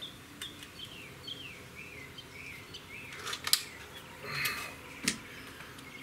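Walther Parrus .22 break-barrel spring-piston air rifle being reloaded between shots: a few sharp clicks while the barrel is broken open, then a clunk about five seconds in as the barrel is snapped shut. Birds chirp faintly in the background early on.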